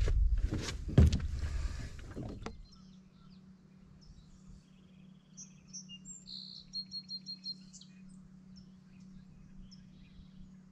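Knocks and thumps on a small aluminum boat for the first couple of seconds as someone moves about on it, then a bird singing a run of quick high chirps over a faint steady hum.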